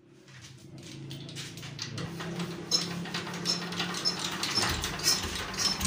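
Petter single-cylinder diesel engine being hand-cranked for a start: sharp metallic clicks repeat a little under once a second from about a third of the way in, over a low steady hum.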